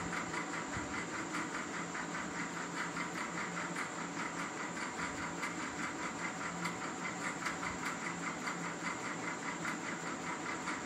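Steady mechanical whir and hiss with a fast, even flutter, running without change.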